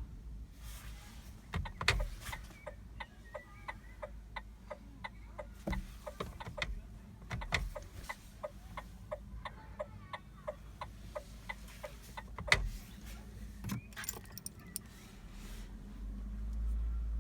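Keys jangling and a run of regular clicking, about three clicks a second for several seconds, with a couple of louder knocks, from a Vauxhall Astra Mk5 that does not crank or start.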